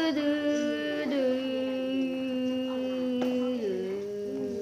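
A voice singing or humming long held notes, each one a step lower than the last.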